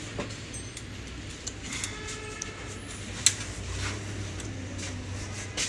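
Sharp small clicks from hands handling a plastic wiring connector on a motorcycle's wiring harness, one clearly louder about three seconds in, over a steady low hum.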